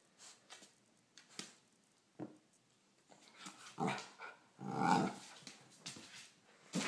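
A puppy playing with a small toy on a wooden floor: scattered light taps and clicks, then a short growl about five seconds in.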